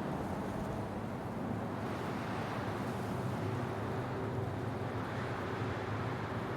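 Wind blowing over the microphone, a steady low rushing noise.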